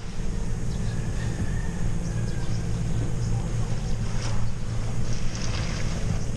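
A boat engine running steadily with a low hum, and a few faint clicks over it.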